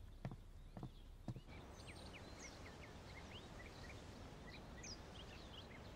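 Faint footsteps on a wooden floor, about two a second, stopping after about a second and a half; then small birds chirping again and again over a faint steady outdoor hiss.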